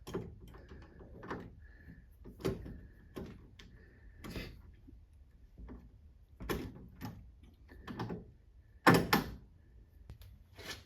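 Irregular clicks and knocks of a car door handle and its gasket being fitted against the door's sheet metal, with a louder knock about nine seconds in.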